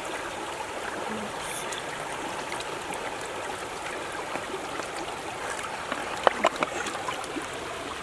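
Steady trickling, watery sound, with a few sharp clicks about six seconds in.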